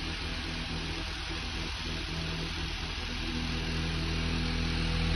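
A diesel engine idling steadily.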